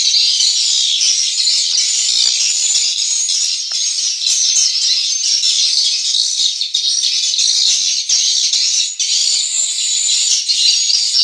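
Dense, continuous high twittering of swiftlet calls filling a swiftlet house, at a steady level.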